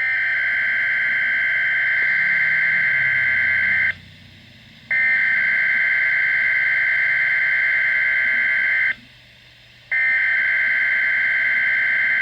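Weather radio SAME alert header bursts: a buzzing two-tone digital data warble that opens a monthly test alert, the code that switches on alert-equipped weather radios. It sounds three times, each burst about four seconds long with a one-second gap, and the third runs on past the end.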